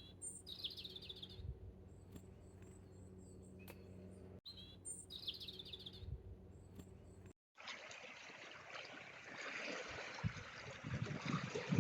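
Small bird calling: a sharp high note followed by a quick rattling trill, heard twice, with faint high chips in between. About two-thirds of the way in this gives way to a steady rushing of wind, with low buffets on the microphone.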